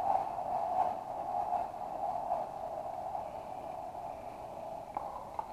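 Powerball gyroscopic wrist exerciser's rotor whirring as it spins, a steady hum that slowly fades as the rotor loses speed, with a faint click near the end.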